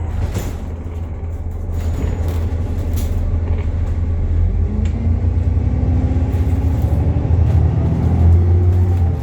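Alexander Dennis Enviro400 MMC double-decker bus under way, with a really loud axle whine over a low engine and road rumble. The whine falls a little in pitch at first, then rises steadily over the second half as the bus gathers speed.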